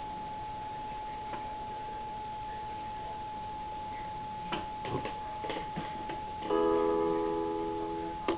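A steady high whine with a few soft clicks. About two-thirds of the way in, the backing track starts with one sustained instrumental chord that slowly fades.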